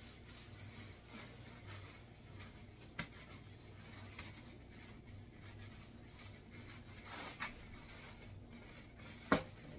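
Faint rustling and handling of a plastic grocery bag, with a few light clicks and knocks and one sharper click near the end.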